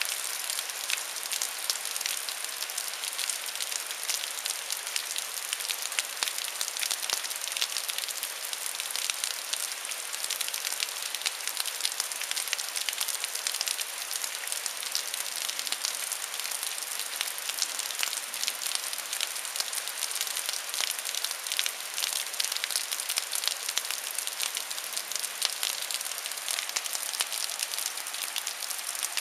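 Thunderstorm rain falling steadily: a dense, even hiss of countless small drop impacts.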